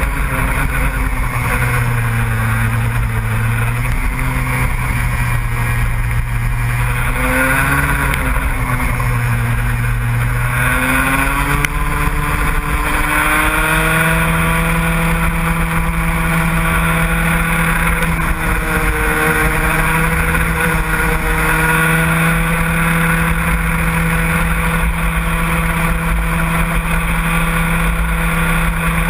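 A motor vehicle's engine running without a break, its revs rising and falling, with a steady low drone that settles at a higher pitch about 14 seconds in.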